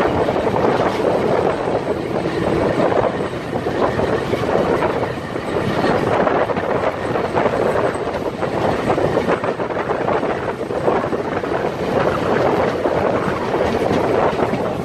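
Historic train running through a station throat, heard from an open carriage window: a steady rumble and rattle of wheels on rails and points, with wind noise on the microphone.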